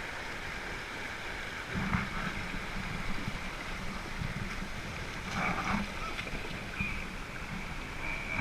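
Canoe moving along a creek: steady water noise, with irregular soft knocks from about two seconds in, such as paddle strokes against the hull.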